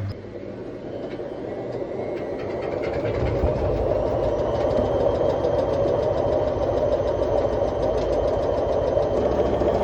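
Bush WMSAE812EB washing machine drum turning in a very unbalanced spin. A steady low hum cuts off at the start, then the drum noise builds over about four seconds into a sustained rumble with rattling.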